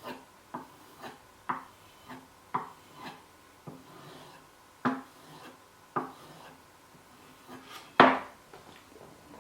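Knife blade being stropped on a leather paddle charged with honing paste: short taps and rubs about twice a second as the blade is drawn and turned over stroke after stroke, with one louder knock about eight seconds in.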